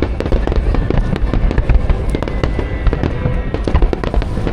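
Fireworks display: a dense barrage of bangs and crackle from bursting aerial shells, many reports a second over a continuous low rumble.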